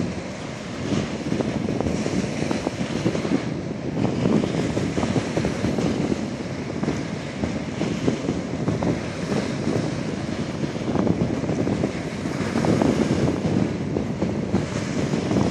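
Gusty wind buffeting the microphone over the steady rush of choppy river water, with small waves slapping against a concrete embankment.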